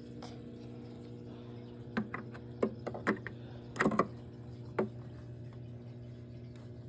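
Several short plastic clicks and knocks, about six between two and five seconds in, from handling the robot vacuum's dustbin and filter parts, over a steady low hum.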